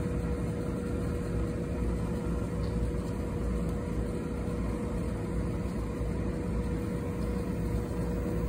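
Steady drone of running machinery: a low rumble with a constant mid-pitched hum, unchanging throughout.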